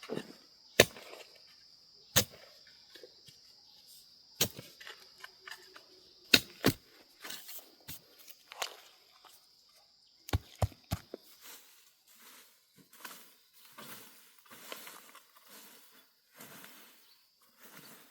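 Sharp chopping strikes, single blows a second or two apart, then three in quick succession, over a steady high insect drone that fades out about two-thirds of the way in. Soft rustling, shuffling sounds follow.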